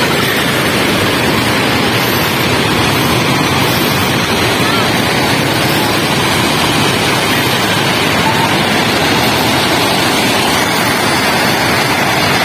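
Sea surf breaking and washing up a sandy beach: a steady, unbroken rush of waves.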